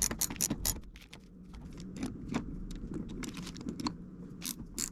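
Metal parts of a cross slide vise clicking and clinking as they are handled and fitted together during assembly. The clicks come irregularly, several a second, thickest near the start and near the end.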